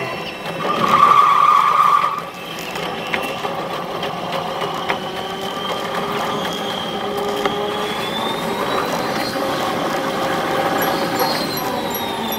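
Sped-up running sound of a Keihan limited express electric train: a steady mix of motor whine and running noise whose tones slowly fall and rise in pitch, with a brief louder tone about a second in.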